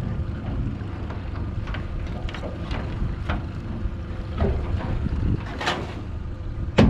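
Wind buffeting the microphone over a steady low rumble aboard a small boat, with scattered light clicks and knocks from handling gear, and a louder knock near the end.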